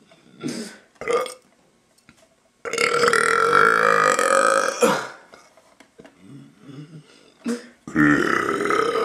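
A young man burping on purpose, over and over. Two short burps come in the first second or so, then a long, loud burp of a couple of seconds with a steady pitch. After a brief lull another long, loud burp starts near the end.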